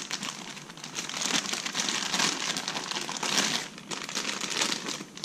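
Clear plastic parts bag crinkling and rustling in the hands as a scooter clutch is unwrapped from it, in irregular spurts.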